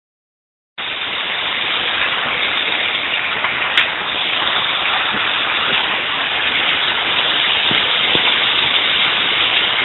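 Heavy rain pouring down in a windstorm, a steady loud downpour that starts abruptly about a second in, with one brief knock a few seconds later.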